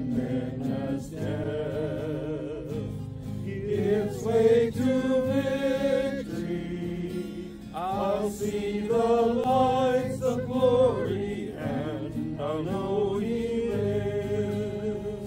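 Voices singing a hymn with guitar accompaniment, a sung melody with vibrato over steady chords.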